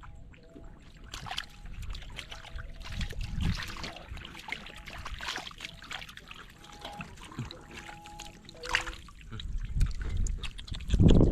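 Shallow water splashing and trickling in irregular bursts, as when wading or handling fish in a flooded field. Faint short steady tones sound in the background.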